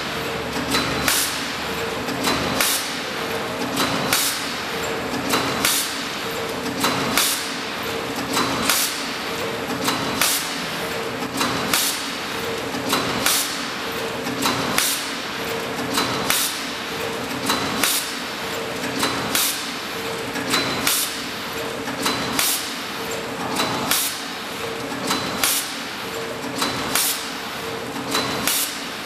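Horizontal form-fill-seal machine that forms zipper pouches from roll film, running through its cycle. A sharp clack comes about every one and a half seconds with lighter knocks between, over a steady mechanical hum.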